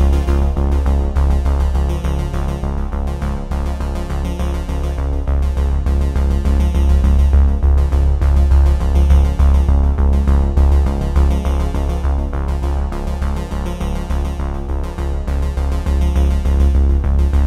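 Electronic background music with synthesizers over a strong, steady deep bass.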